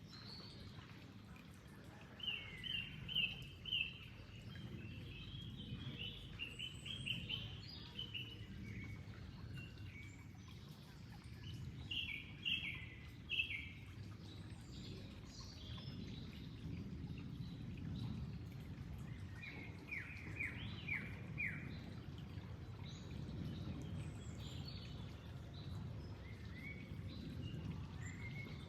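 Steady low rush of flowing water, with songbirds chirping in quick runs of short notes four times: a couple of seconds in, about a quarter of the way through, near the middle and about two-thirds through.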